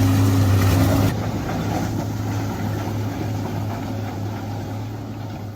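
Wood chipper's engine running steadily with a low hum. A loud, noisy grinding layer cuts off sharply about a second in, and the engine carries on, slowly fading.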